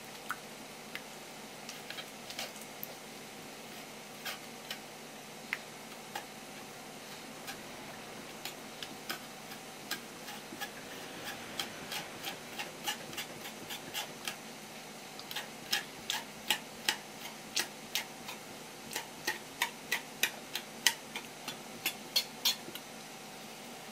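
Kitchen knife tapping and clicking against a cutting board during fish preparation. The sharp clicks are scattered at first, then come faster and louder in the second half, about two or three a second.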